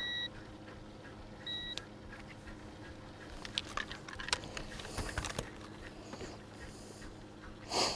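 Handheld digital fish scale giving two short high beeps about a second and a half apart while weighing a smallmouth bass hanging from its lip grip. Then light clicks as the scale and gripper are handled, and a brief rush of noise near the end.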